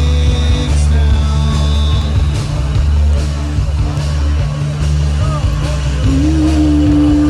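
Rock music with a heavy, steady bass; about six seconds in a held note slides up and sustains.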